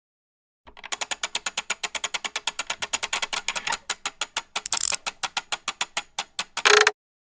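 Gear mechanism clicking fast and evenly as it turns, about nine clicks a second, ending in a short louder burst.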